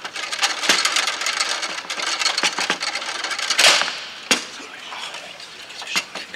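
Foosball play on a Bonzini table: the ball clacking off the figures' feet and the walls, with rods knocking against the bumpers in an irregular string of sharp clicks and knocks. There is a brief rush of dense clatter about three and a half seconds in, then a sharp knock.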